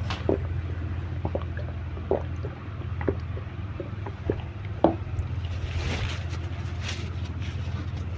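Close-up eating sounds: wet chewing clicks and lip smacks, scattered irregularly, with a louder smack about five seconds in, over a steady low hum.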